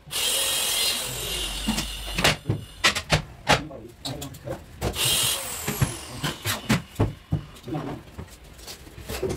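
Cordless drill-driver running in two bursts, about two seconds at the start and half a second around five seconds in, each winding down with a falling whine; it is driving screws while cupboard doors are hung. Between the bursts come sharp knocks and clatter of the wooden doors and hardware being handled.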